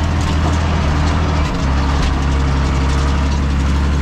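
Tractor engine running steadily while working the field with a disc harrow, a low drone whose pitch shifts slightly about one and a half seconds in.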